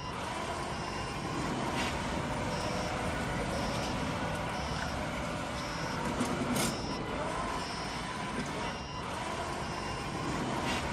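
Small petrol engine of a remote-control wheeled lawn mower running steadily under mowing load. Faint short high-pitched beeps recur in the background.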